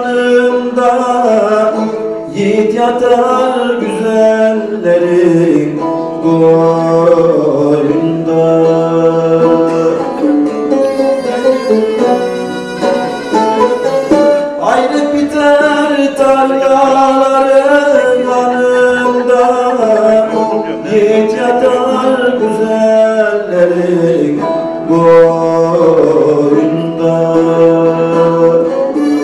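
Turkish bağlama (long-necked saz) plucked and strummed in a folk melody, with a man singing along in long, bending phrases.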